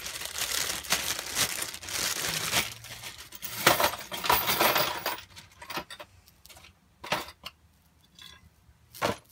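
Small steel drum-brake springs and hardware being poured out of their packaging into a box: about five seconds of dense metallic clinking, then a few scattered clinks.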